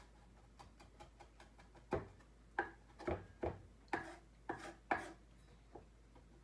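Chef's knife chopping fennel fronds on a wooden cutting board: light quick taps at first, then a run of about eight sharper knocks, roughly two a second, from about two seconds in.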